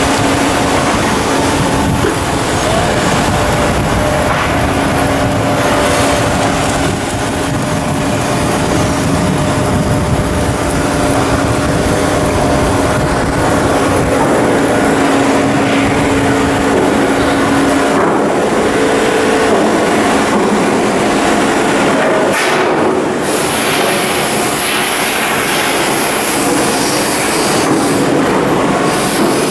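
Loud, steady machinery noise with a constant hum running through it. About three-quarters of the way through the low rumble thins out, leaving a high hiss.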